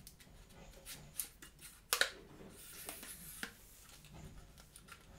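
Camera accessories being handled: scattered small clicks and rustling, with the sharpest click about two seconds in and another near three and a half seconds.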